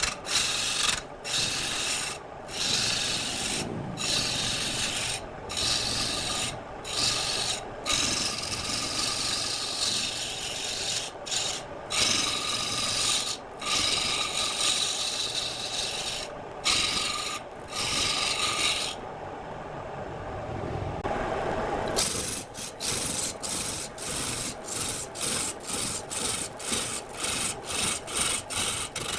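A turning tool cutting wood on a spinning lathe: a rasping hiss broken by short gaps as the tool comes off the wood. For about three seconds past the middle the cutting stops and only the lower running sound is left, then short cuts come about twice a second.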